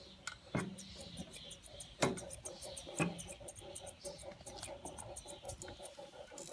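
Grooming scissors, thinning shears among them, snipping the long fur around a dog's paw: a quick run of small crisp snips, several a second, with a few louder clicks of the blades.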